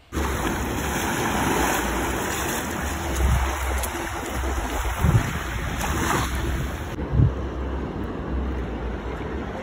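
Ocean surf washing onto a beach, with wind rumbling on the microphone.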